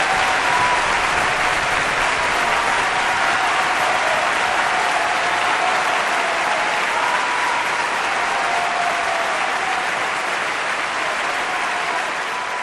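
Audience applauding steadily, tapering off slightly near the end.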